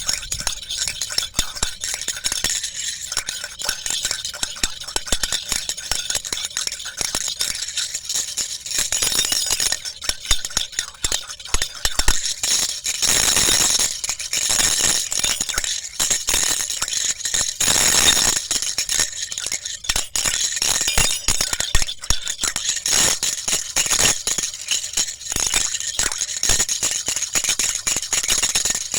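A continuous dense rattle of fine clicks, like small hard bits shaken or scraped, swelling louder twice in the middle.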